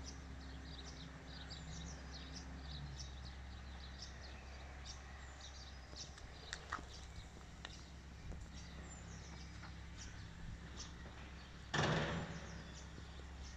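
Small birds chirping in short, high calls scattered throughout, over a steady low hum, with one short burst of noise about three-quarters of the way through.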